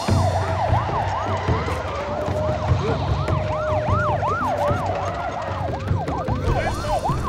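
Several police sirens sounding at once: a rapid yelp that sweeps up and down a few times a second, and a steadier held wail, over a low rumble. They start abruptly.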